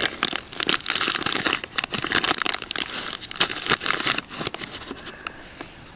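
Foil bag of powdered fishing dough bait crinkling and rustling in the hands as the mix is shaken out of it into a small plastic cup. The crinkling dies down about four and a half seconds in.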